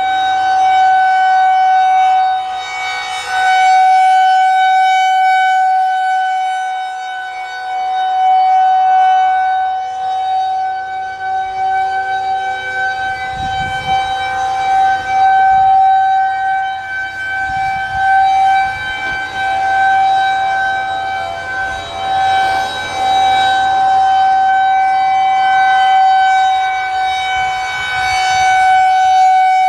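Federal Signal 2001-130 rotating tornado siren sounding its steady Alert tone: one unchanging pitch that swells and fades every six seconds or so as the rotating head sweeps past.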